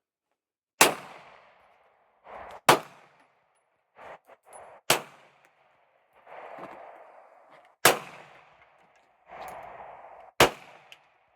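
Five single shots from a semi-automatic handgun, fired slowly about two to three seconds apart. Each is a sharp crack with a short echoing tail.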